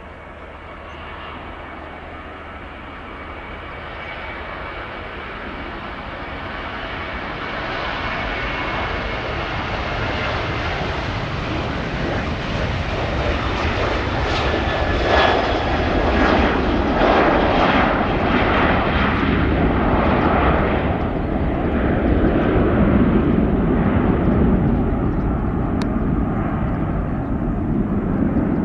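Boeing 737's twin CFM56 turbofan engines at takeoff power through the takeoff roll, liftoff and initial climb. The sound grows steadily louder, with a thin whine over the jet noise at first, and a deeper rumble takes over in the last third.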